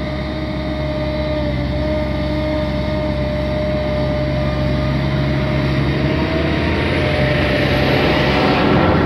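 Caterpillar M315D wheeled excavator's diesel engine running under load while digging sand, with a steady whine over the hum. It grows louder toward the end as the loaded boom is raised.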